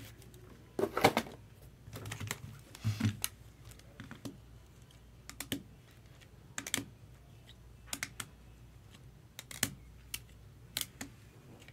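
Scattered light clicks and taps at irregular intervals, with two denser clusters about a second and three seconds in.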